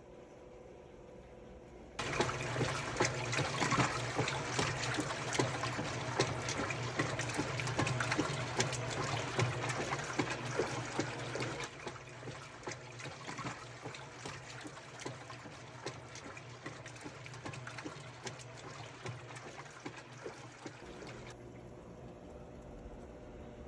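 Whirlpool commercial top-load washer running its test cycle after a clutch replacement: water rushes and splashes into the tub with a steady hum, starting suddenly about two seconds in, easing off about halfway, and cutting off near the end.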